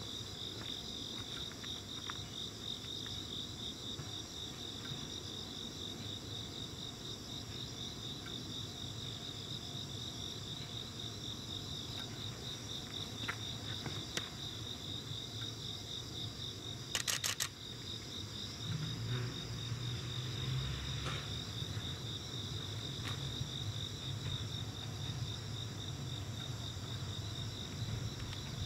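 Crickets chirping steadily, with a short sharp burst of clicks about 17 seconds in. From about 19 seconds a low rumble comes in, from the slowly approaching work train.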